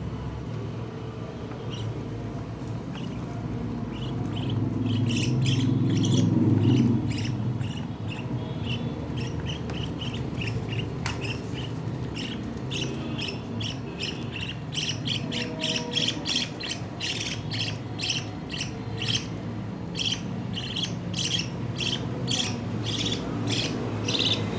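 Pet lovebirds chirping and squawking in quick, shrill calls that build up after a few seconds and come thick and fast in the second half. A low rumble runs underneath and swells about six seconds in.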